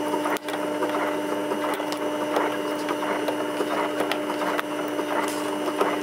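Frigidaire dishwasher running, a steady hum under a crackly noise, with scattered clicks and scrapes as a levelling leg beneath it is adjusted by hand.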